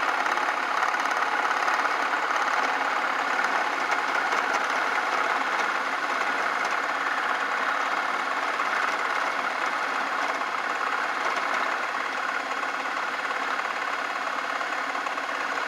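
Craftsman 109 bench lathe running steadily, its motor and drive humming evenly while the tool takes a cut on the turning workpiece.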